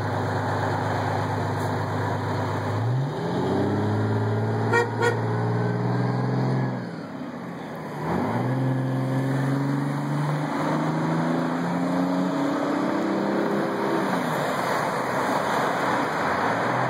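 Fire truck engine idling, then revving up as the truck pulls away, its pitch climbing and falling back several times as it shifts up through the gears. Two short horn toots about five seconds in.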